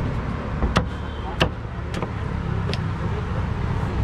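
A knife knocks sharply against a cutting board a few times, irregularly, as mango is sliced, over a steady low rumble of road traffic.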